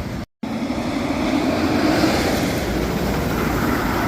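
Roller coaster train running along its track on a test run: a rushing noise that swells from about a second in and peaks around two seconds. A brief dropout to silence comes just after the start.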